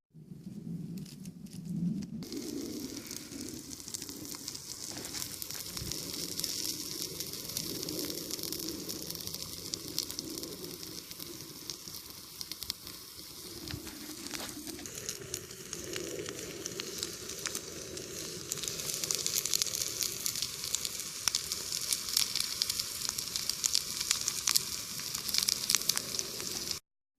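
Food frying in a pan: a steady sizzle with many small crackles and pops, growing louder about two-thirds of the way through.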